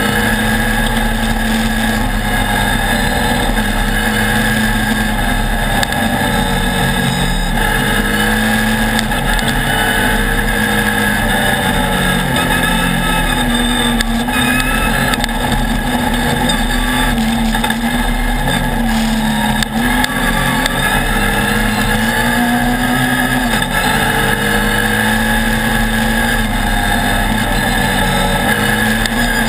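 Off-road race buggy's engine running hard at speed, heard loud and close from on board. Its pitch rises and falls every few seconds with throttle and gear changes.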